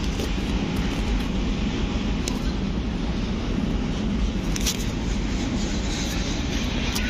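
Train running at a station: a steady low rumble, with a few faint clicks about four and a half seconds in and near the end.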